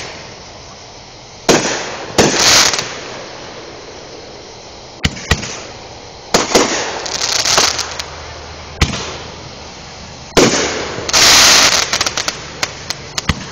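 Fireworks going off: a series of sharp bangs at irregular intervals, several followed by about a second of dense crackling, with a quick string of small pops near the end.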